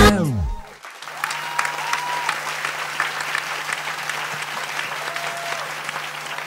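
Dance music slows and drops in pitch to a stop within the first second, then an audience applauds, with a few shouts over the clapping and a low steady hum underneath.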